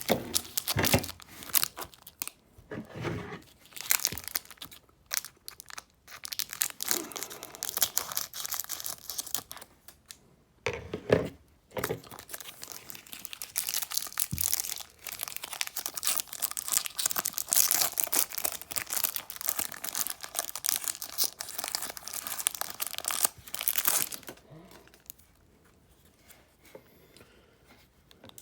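Plastic or foil wrapping on Match Attax trading card packs being torn open and crinkled in the hands, in irregular ripping and crackling bursts that die away to faint handling near the end.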